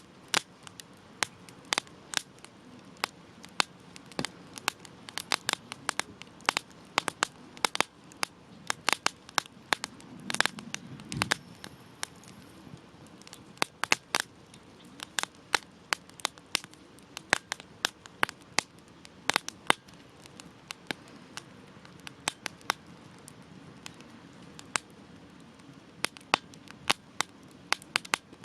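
Wood campfire crackling: sharp, irregular pops and snaps, at times several a second, over a low steady hiss of burning, with a short low rush of flame about a third of the way in.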